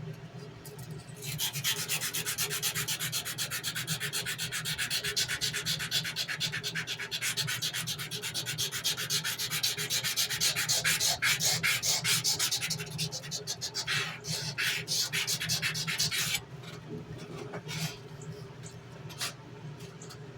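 Sandpaper rubbed by hand back and forth along a knife blade in rapid, even strokes, stopping about sixteen seconds in and followed by a few separate strokes.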